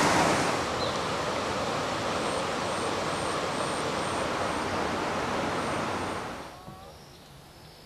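Steady rush of river water running through rapids. About six seconds in it cuts off abruptly to a faint background with a few soft chirping calls.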